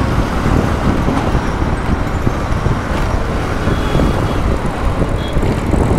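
Road noise from a small commuter motorcycle riding in city traffic: a steady rush of its engine, tyres and wind on the microphone, with the surrounding traffic mixed in.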